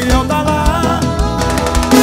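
A forró song playing, with a steady drum-and-bass beat under held chords.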